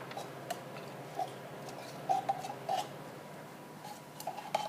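Scattered light clicks, taps and short squeaky scrapes of a utensil working against a can and bowl while sweetened condensed milk is emptied out, over a faint steady background hum.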